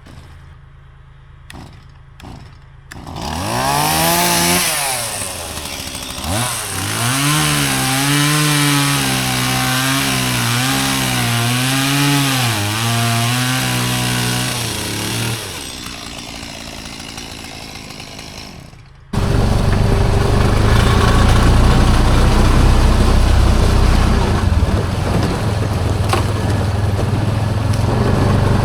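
A small gasoline engine starts about three seconds in, rises quickly and runs with its speed wavering up and down. It dies away, and then after a sudden cut a louder, steadier machine running noise takes over for the rest.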